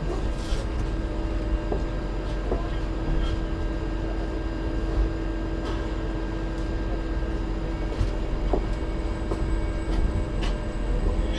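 Steady low rumble of a dark-ride train carriage on its journey, with a constant hum over it and a few faint clicks.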